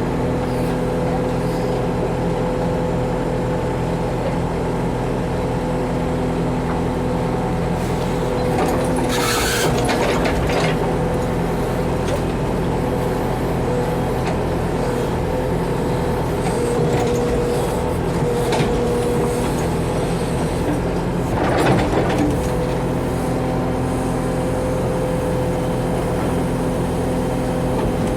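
Backhoe's diesel engine running steadily while it digs, with two louder, harsher noisy spells, one about a third of the way in and one about three quarters through.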